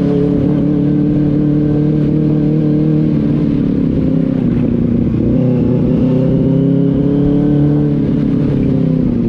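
Benelli 600i's inline-four engine running under way at steady revs, its pitch dipping about four seconds in, climbing again, then dropping off near the end.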